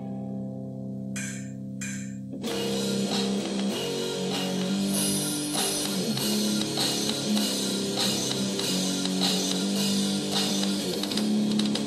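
Homemade rock song: a held chord with two short drum hits, then about two and a half seconds in the full band comes in with guitar and drum kit playing.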